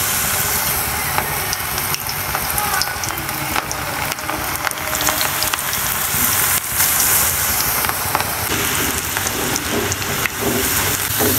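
Masala-coated potato finger chips deep-frying in hot ghee: a steady sizzle with many small crackles and pops.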